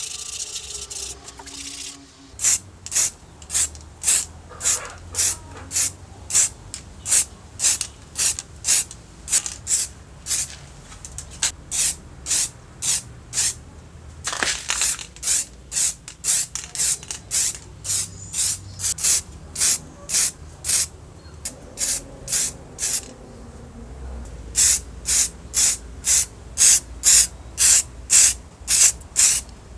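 Aerosol spray-paint can spraying in many short hissing bursts, roughly two a second, with one longer spray near the middle, as the circular saw's metal housing is painted.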